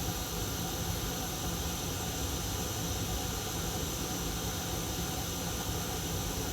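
Hot air rework station blowing a steady hiss of hot air onto a chip to reflow its solder, with a low hum underneath.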